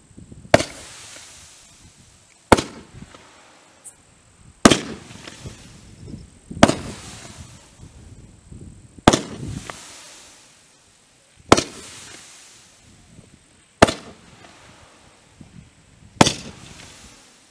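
A Peacock Dance 30-shot fireworks cake firing shot after shot. There are eight sharp bangs about two to two and a half seconds apart, and each is followed by a fading hiss.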